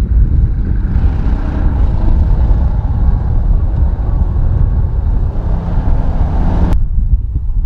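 Diesel engine of a Tornado-G rocket launcher's Ural 6x6 truck running as it drives over a muddy field, a loud, steady low rumble. The upper part of the sound cuts off suddenly near the end, leaving a duller, lower rumble.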